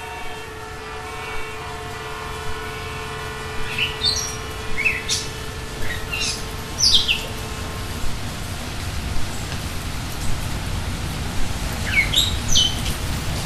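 Birds chirping in short, sharp, sweeping calls, in clusters from about four seconds in and again near the end, over a steady low rumbling noise. A held chord of steady tones fades out over the first half.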